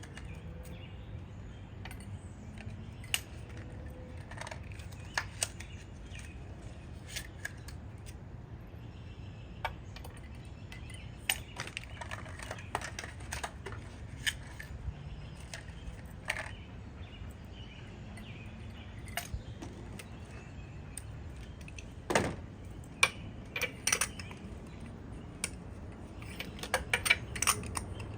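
Scattered metallic clicks and clinks of a spark plug socket and extension as spark plugs are threaded in and torqued down. There is a sharper clack about two-thirds of the way through and a quick run of clicks near the end.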